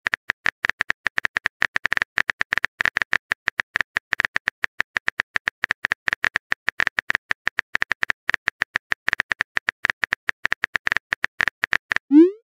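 Chat-app keyboard typing sound effect: a rapid run of short synthetic key clicks as a message is typed letter by letter. Near the end, a short rising whoosh marks the message being sent.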